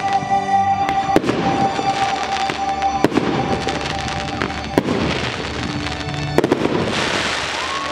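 Aerial fireworks display: sharp bangs of shells bursting every second or two, with crackle and hiss, over music with long held notes.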